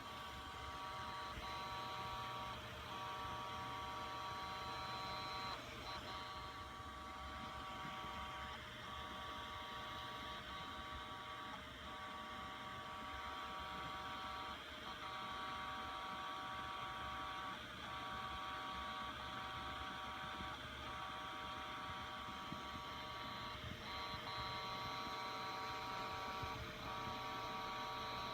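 Seagate Enterprise Capacity ST4000NM0035 hard drive idling with a steady whine, broken by a repetitive head seeking/parking noise about every three seconds. The noise comes from a firmware issue that a firmware update fixed.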